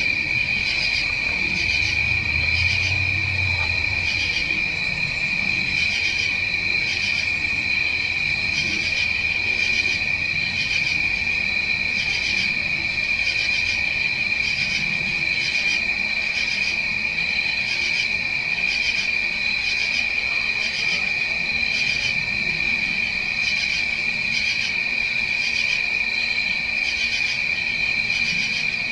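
Night chorus of crickets and other insects in a forest: a continuous high trill, with a second, pulsing insect call repeating evenly over it.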